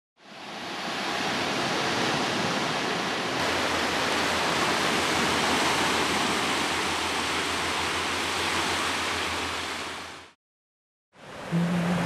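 Surf washing on a beach: a steady rushing noise that fades in over the first second or so and cuts off suddenly about ten seconds in. After a brief gap of silence, a different steady noise with a low hum starts near the end.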